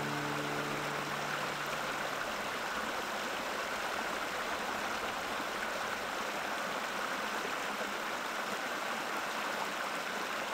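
Small rocky stream rushing and splashing over stones, a steady rush of water. The last notes of background music fade out in the first two seconds.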